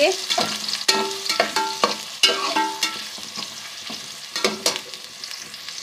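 Chopped onion frying in hot ghee with a steady sizzle while it is stirred to brown. A spoon scrapes and knocks against the pot several times.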